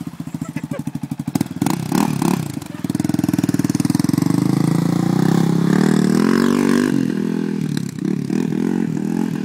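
2004 Yamaha Raptor 660 quad's single-cylinder four-stroke engine being ridden hard: choppy throttle blips for the first few seconds, then held revs that climb in pitch for several seconds before easing off near the end.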